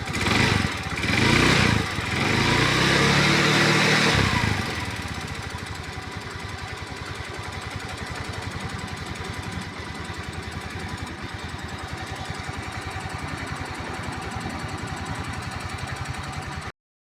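Motor scooter engine revved three times, the third rev held from about two to four seconds in, then dropping back to idle with a fast, even pulsing; the scooter is making an unexplained strange noise. The sound cuts off suddenly near the end.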